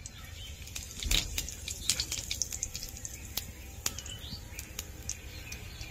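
Whole spices (dried red chillies, bay leaves and cumin seeds) crackling in hot oil, a run of irregular sharp pops and clicks, with a duller knock about a second in.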